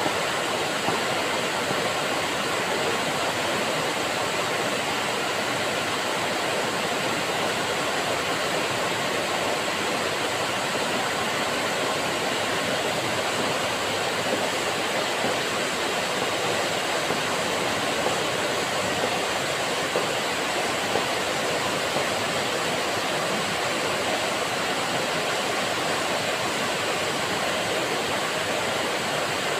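Waterfall pouring over a rock face into a pool: a steady, unbroken rush of falling water.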